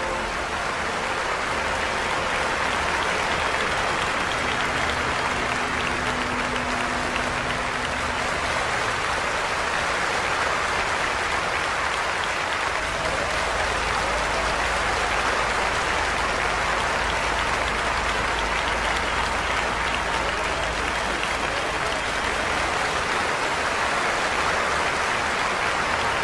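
Audience applause: a dense, steady clapping that holds at an even level throughout.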